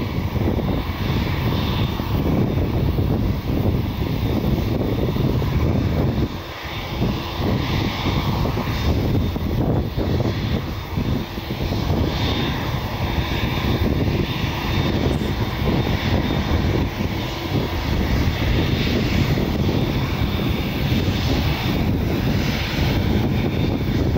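Boeing 787-8 Dreamliner's jet engines running at low taxi power as the airliner taxis close by: a steady rumble with a faint high whine over it.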